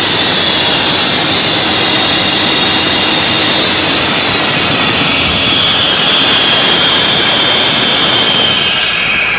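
Komatsu PC200-8 excavator's diesel engine running loudly and steadily, with a high whine that slowly falls in pitch.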